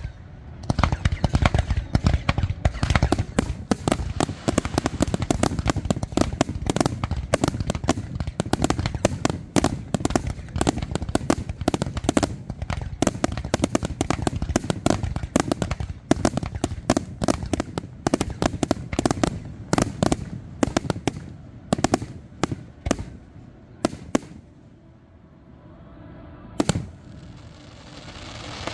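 Fireworks display: a dense barrage of aerial shells bursting, with many sharp bangs in quick succession. About 24 seconds in the bangs thin out to a lull broken by one last bang, and a steady hiss rises at the very end.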